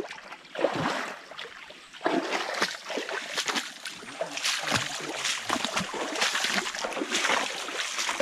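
Footsteps wading through a shallow, rocky stream in sandals: irregular splashes and sloshing over the running water, getting louder about two seconds in.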